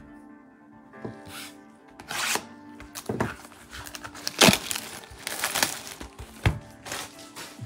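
A cardboard hobby box of trading-card packs being opened by hand, with a series of short tearing and crinkling noises, one loud one about halfway through. Steady background music plays underneath.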